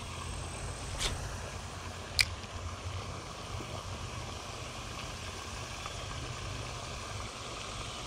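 A steady low hum with two sharp clicks, about a second and two seconds in, as the line and spinning reel are handled.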